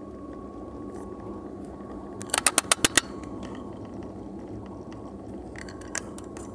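Steady engine and road hum inside a moving car's cabin. About two seconds in comes a quick run of about seven sharp clicks, with a few more near the end.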